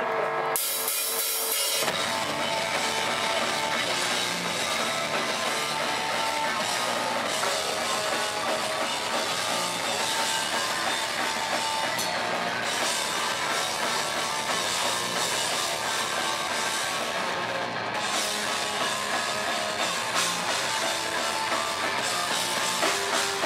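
Live hardcore punk/metalcore band playing: drum kit with bass and electric guitars, the full band coming in about two seconds in and running on dense and loud.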